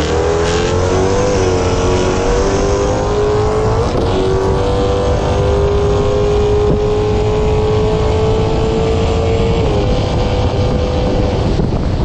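Engine of a drag-racing vehicle at full throttle down the strip. The revs climb hard at the launch, then stay high with a few small steps in pitch. There is a sharp click about four seconds in.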